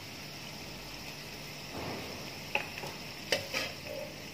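Food sizzling in a frying pan as it is stirred with a metal utensil, with a few sharp clicks and scrapes of the utensil against the pan in the second half.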